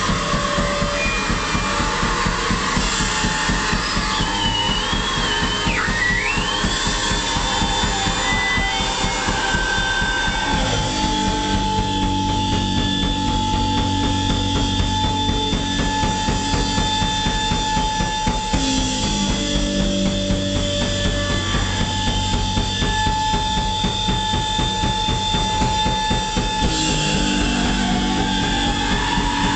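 Loud live rock band: distorted electric guitar and drum kit playing with dense fast drumming. A high whining tone wavers and dips a few seconds in, then holds for most of the rest.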